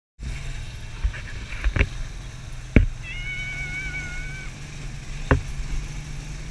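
Off-road side-by-side buggy driving: a steady low engine drone with several sharp knocks. A high, slightly wavering call about a second and a half long comes near the middle.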